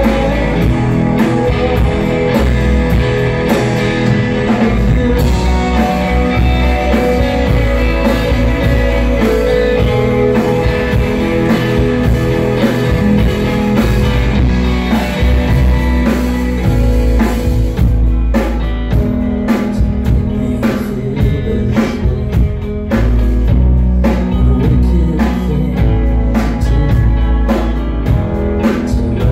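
Live rock band playing loudly, with electric guitar, drums and a man singing; the drum hits come through sharper and more regular from a little past halfway.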